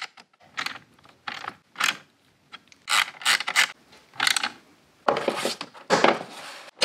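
Ratchet wrench clicking in short bursts, about eight strokes with pauses between them, tightening nuts on the battery terminal and fuse block.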